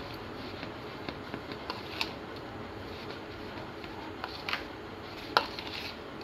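Metal spoon stirring a soft semolina and potato mash in a plastic bowl: scattered light clicks and scrapes of the spoon against the bowl, the sharpest about five seconds in.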